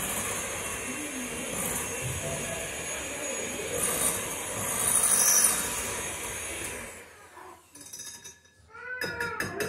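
Electric hand mixer running steadily, its beaters whirring through cream cheese and whipped cream in a glass bowl; it stops about seven seconds in. Near the end, a short high-pitched call.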